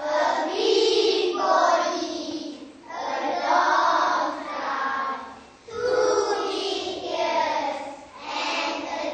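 A class of young children singing together in unison, a simple classroom song naming an animal's body parts, in phrases with short breaks between them.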